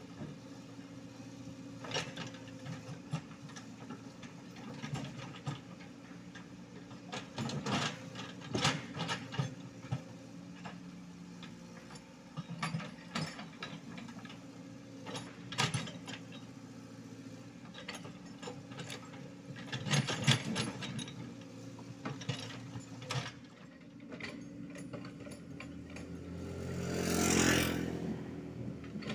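Komatsu PC75UU mini excavator's diesel engine running steadily, with scattered sharp clanks and scrapes as the bucket works soil on the road. Near the end a louder swell of noise rises and falls.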